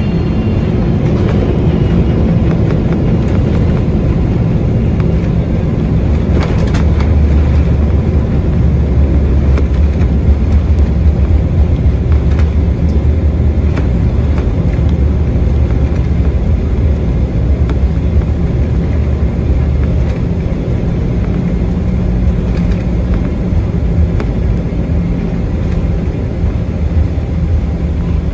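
Cabin noise of a Boeing 777-300ER on its landing run, heard from a window seat beside the GE90 engine: a loud, steady rumble of engines and airframe rolling along the runway. A few knocks come about seven seconds in, and a deeper rumble then swells, easing off after about twenty seconds.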